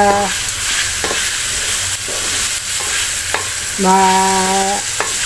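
Chicken pieces sizzling in a hot metal wok as they are sautéed, stirred and turned with a wooden spatula that scrapes and knocks against the pan a few times.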